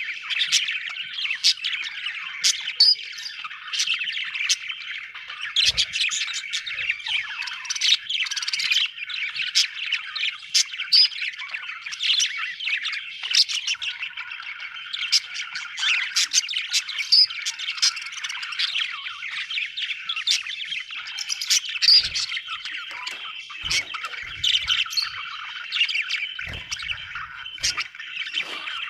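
A flock of budgerigars chattering, a dense, unbroken mix of chirps, warbles and short squawks.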